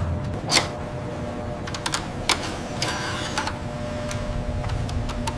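Small mechanical parts clicking and clacking at uneven intervals, with a short rattling whirr about three seconds in, over a faint steady hum.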